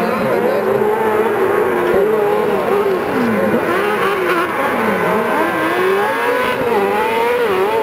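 Several kartcross buggies racing on a dirt track, their high-revving motorcycle engines overlapping in a wavering whine. The main engine note drops sharply twice, about three and five seconds in, then climbs back up.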